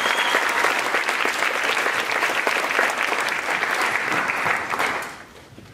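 Audience clapping, a dense patter of many hands, fading out about five seconds in.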